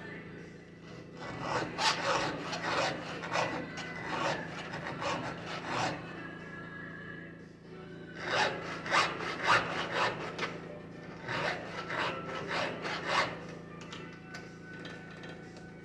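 Hand file rasping across the cutters of a chainsaw chain in quick, repeated strokes, in two runs with a short pause between them.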